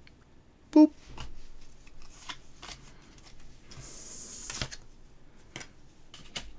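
Pokémon trading cards and a foil booster pack being handled: cards sliding and rustling in the hands, with a short crinkling tear of the foil wrapper in the middle. A brief, sharp squeak about a second in is the loudest sound.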